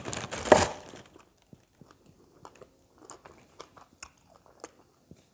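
Tissue paper rustling and crinkling as hands dig through it in a box, fading out after about a second, followed by faint scattered small clicks and crackles.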